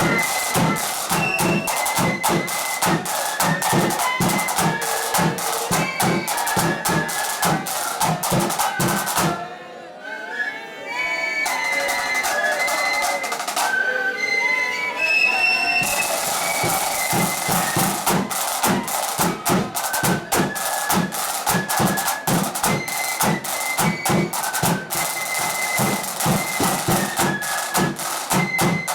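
Blood and thunder flute band playing a march: high flutes over heavy, fast bass and snare drumming. About ten seconds in the drums stop and the level drops for a few seconds while the flutes carry on more lightly, then the full drumming comes back in.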